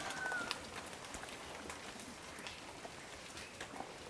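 Faint rustling of coffee bushes with scattered light ticks as coffee cherries are picked by hand.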